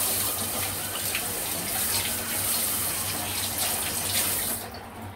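Kitchen tap running steadily into the sink as a long eggplant is rinsed under it by hand; the water stops shortly before the end.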